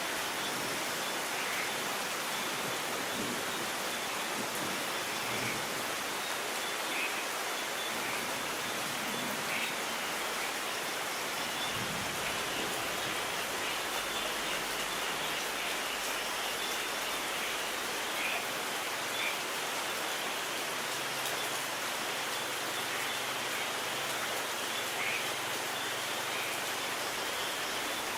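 Steady rain falling, an even hiss with scattered individual drops standing out.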